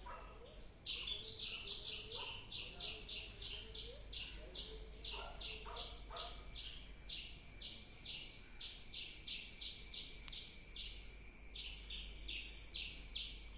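A squirrel chirping: a long series of sharp, high chirps, about three to four a second, starting about a second in and going on almost to the end with a short break near the end.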